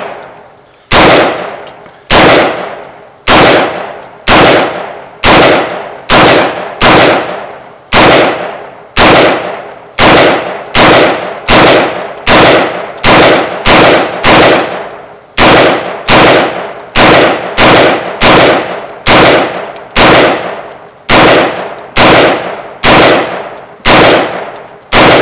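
Windham Weaponry 20-inch AR-15 rifle fired semi-automatically, loud single shots at a steady pace of about one a second, each followed by a fading echo.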